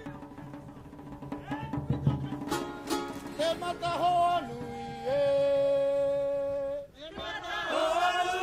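Music with singing over a plucked-string backing. A voice slides between notes, holds one long note that breaks off about seven seconds in, then several voices come in together.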